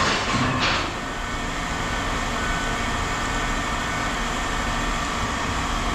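Steady machinery rumble, like a running engine, with a short clatter about half a second in.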